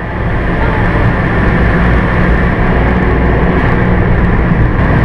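Suzuki car's engine and tyre noise heard inside the cabin while driving on track, a steady drone with a strong low hum.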